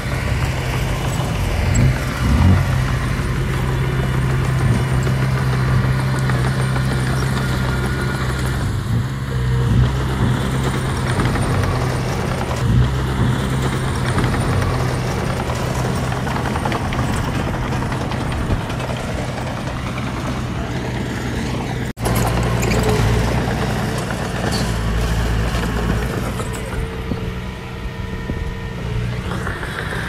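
Diesel engine of small earthmoving machinery running steadily under work, with a few short knocks. The sound breaks off for an instant about two-thirds of the way through, then carries on.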